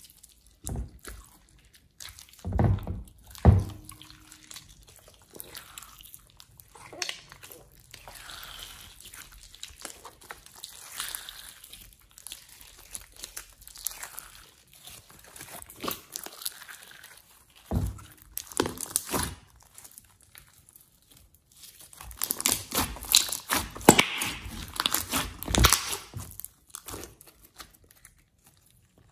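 Soft slime being squeezed, stretched and kneaded by hand, making sticky crackles, clicks and wet squelches in irregular bursts, the busiest spell near the end.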